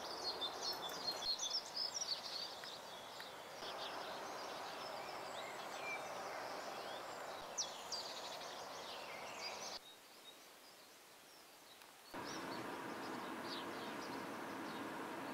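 Outdoor ambience: small birds chirping, busiest in the first few seconds, over a steady background noise. The background drops quieter for about two seconds, about two-thirds of the way through.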